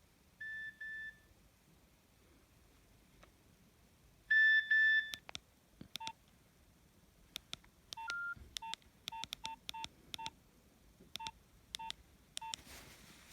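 Nokia 3120 mobile phone being operated by its keypad: short electronic key-tone beeps and sharp button clicks. Two louder beeps come about four seconds in, and a quick run of key presses, each with a short low beep, fills the second half, ending in a brief rustle.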